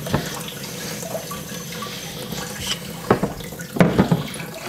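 Tap water running over a whetstone into a sink, rinsing the Nagura stone's grit off the stone, with a few sharp knocks about three and four seconds in.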